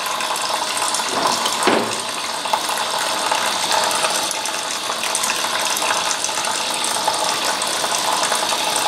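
Steady rush of a tap running into a sink.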